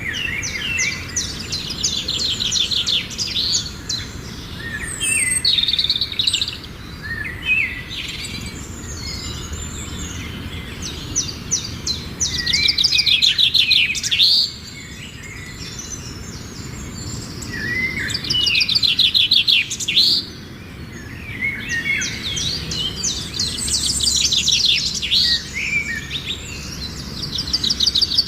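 Songbirds singing in rapid, trilling phrases that repeat every few seconds and sometimes overlap, over low steady background noise.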